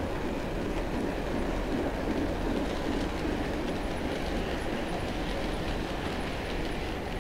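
Model train hopper cars rolling past on curved track: a steady rolling noise of small metal wheels on the rails.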